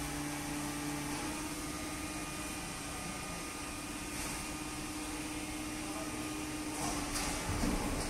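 Automatic horizontal waste-paper baler and its feed conveyor running, a steady machine hum with one constant tone; a lower tone drops out about a second in, and a few louder clatters come near the end.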